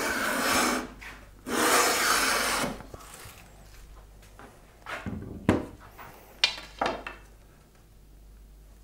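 Metal bench plane cutting along a thin ramin strip in two long strokes, each about a second, its sole freshly waxed. A few shorter scrapes and knocks follow.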